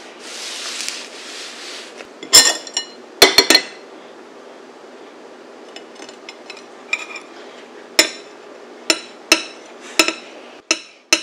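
Metal cake server and fork clinking against a glass plate as a slice of layer cake is set down and steadied on it: a short soft rustle at first, then a cluster of sharp ringing clinks, and after a lull a string of single clinks about a second apart.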